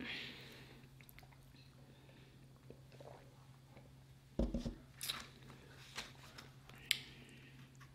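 Close-miked eating-show sounds: a short hiss at the start, then a dull knock about four and a half seconds in as a large paper drink cup is set down on the table. A few sharp clicks of a plastic fork in a fibre takeout bowl follow, along with faint chewing.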